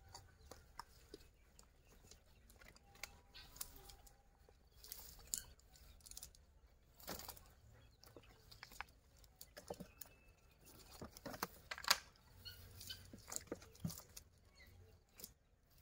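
Soft, irregular clicks and rustles of a cast net being handled as fish are picked out of its mesh, with a few faint bird calls now and then.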